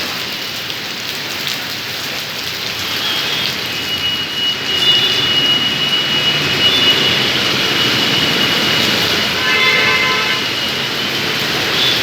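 Heavy rain pouring down, a steady dense hiss, with a thin high whine over it and a short pitched sound about ten seconds in.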